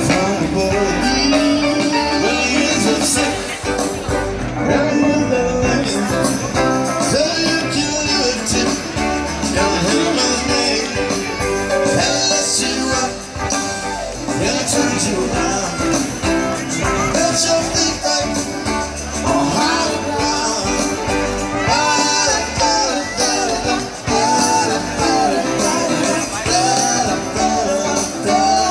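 Live band music with a singer, played through a large outdoor stage PA and heard from within the crowd.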